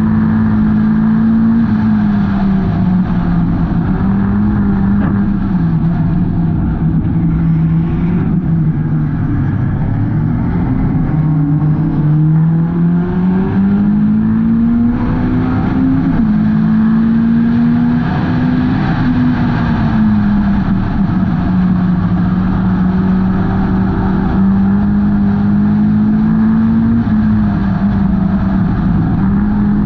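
Hornet-class race car's four-cylinder engine running hard during a race. Its pitch falls and rises several times, with a long climb about halfway through, as the car lifts for the corners and accelerates again.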